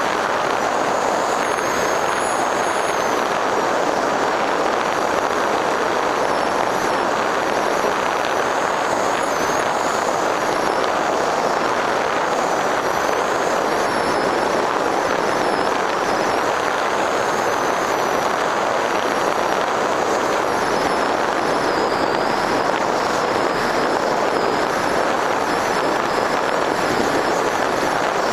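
Onboard sound of an FPV Raptor 1600mm electric pusher plane in flight: a steady rush of propeller and airflow with a high motor whine that wavers up and down in pitch.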